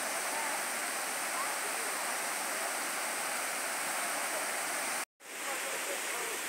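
Steady rush of water from a waterfall and cascading stream pouring over rocks into a pool. The sound drops out for a moment about five seconds in, then the same rushing resumes.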